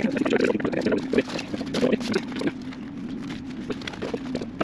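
Hands rubbing and pressing a sticky-back repair patch flat onto the stiff sailcloth of a genoa, working out creases: irregular short scuffs and rustles of the fabric, busiest in the first couple of seconds. A steady low hum runs underneath.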